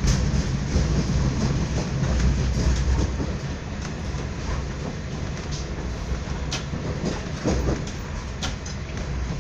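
Running noise of a moving passenger train heard inside the carriage: a steady low rumble with occasional sharp, irregular clicks.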